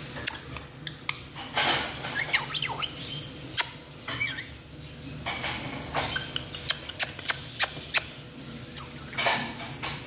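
Red-lored amazon parrot making sharp clicks and short, soft chattering sounds. The clicks are scattered at first, then come in a quick run of about five, roughly three a second, past the middle.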